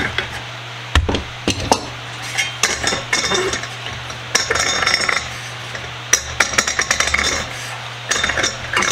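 Metal clinks and scraping as the stuck threaded top of an old steel solvent dispenser can is worked loose, first with pump pliers, then twisted by hand. There are a few sharp clicks about a second in, then repeated short grinding scrapes as the top turns.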